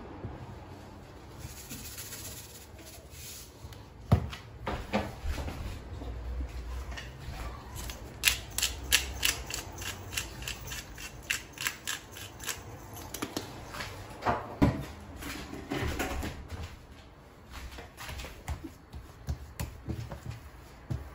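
Rhythmic clattering, about four or five knocks a second for several seconds, from a closed aluminium pressure cooker of cooked chicken being shaken so the meat shreds inside. Near the end come scattered soft knocks of dough being worked by hand on a stone countertop.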